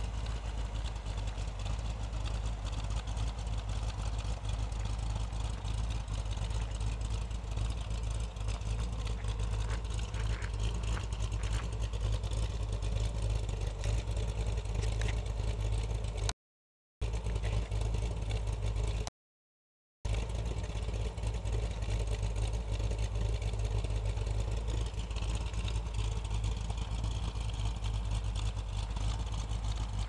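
1964 Corvette Sting Ray's 365 hp 327 V8 idling steadily through its exhaust, a deep even rumble.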